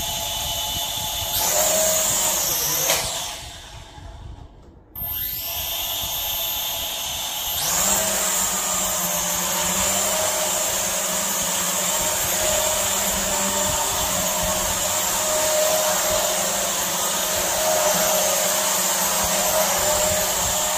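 Garuda 1080P camera drone's electric motors and propellers whirring. The whir speeds up about a second in, winds down almost to nothing around four seconds, starts again, and from about eight seconds on runs at a higher, steady pitch.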